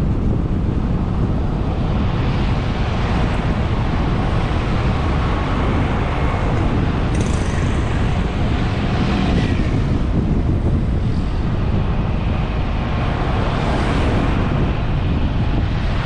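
Steady wind rumble on a GoPro's microphone while riding through street traffic, with motorbikes and cars passing. A brief high-pitched sound rises about seven seconds in.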